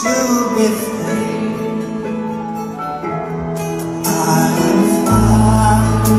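Music from a recorded song: held instrumental chords, with a deep bass note coming in about five seconds in.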